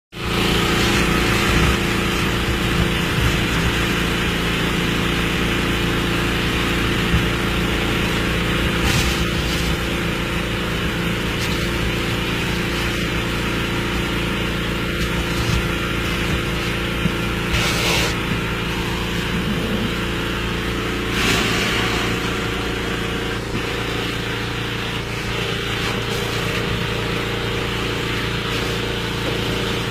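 Vacuum tanker's suction pump running steadily with a constant drone, drawing grease-trap waste up a suction hose with a hiss of air and sludge, and a few brief louder surges as the hose mouth sucks at the sludge.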